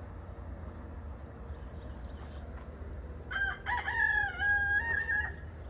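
A rooster crowing once, a single drawn-out call of about two seconds starting a little past halfway in, over a low steady rumble.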